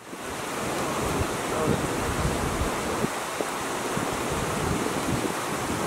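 Steady rushing noise, fading in over the first half second.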